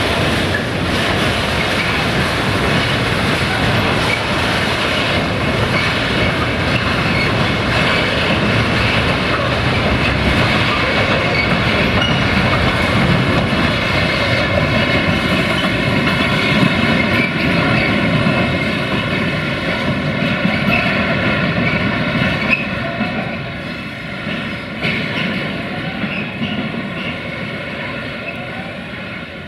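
Freight train wagons rolling past on the rails, a loud steady rumble with some clickety-clack, and a steady ringing squeal from the wheels that grows clearer in the second half as the rumble fades.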